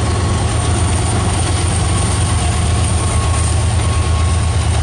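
CN mixed-freight train rolling past, a loud, steady rumble of wheels and rail cars with a thin steady whine over it.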